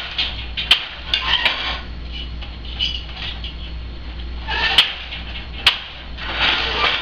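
Hand weaving on an 8-shaft countermarch loom: a wooden shuttle passed through the shed and the beater swung against the cloth, with sharp wooden clacks several times between swishing stretches.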